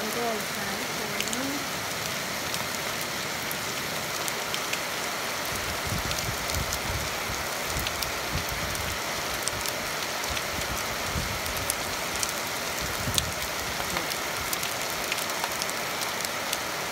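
Steady rain falling, an even hiss with many sharp taps of single drops landing close by. A low rumble comes and goes through the middle few seconds.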